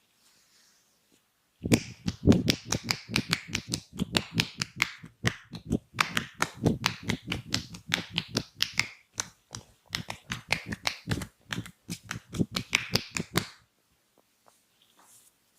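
Percussive massage strokes: hands striking the body in quick slaps, about five or six a second, starting about a second and a half in and stopping about two seconds before the end.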